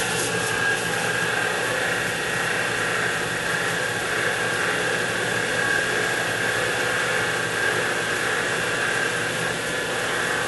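X2 mini mill's spindle running steadily at about 800 to 900 RPM while a drill bit cuts through aluminium, a continuous motor-and-drive whine with a high tone over a low hum.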